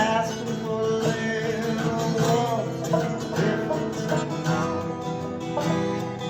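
Live acoustic music: plucked string instruments playing a bluegrass-style tune.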